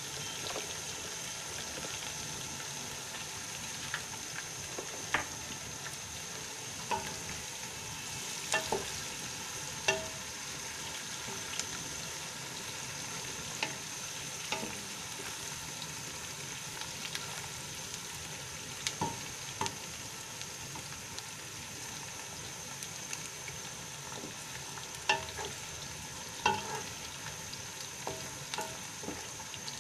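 Sliced onions frying in hot oil in a nonstick pot, a steady sizzle, stirred with a wooden spatula that knocks and scrapes against the pot now and then.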